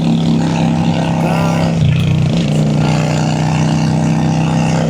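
Honda Shadow V-twin cruiser engine running steadily under way, with the engine note dropping briefly and coming back up about two seconds in.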